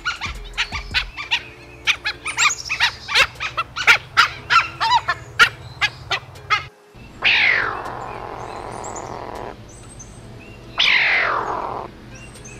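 Dholes (Asian wild dogs) giving a rapid run of short, high chirping whistles and squeaks. After a break, two longer hissing calls each slide down in pitch, one about 7 seconds in and one near the end.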